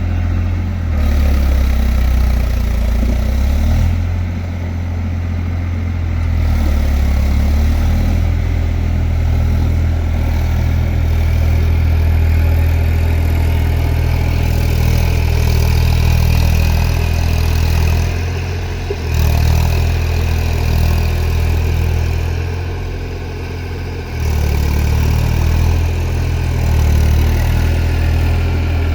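Eicher tractor's diesel engine running steadily while ploughing in mud. Its note dips several times and picks up again.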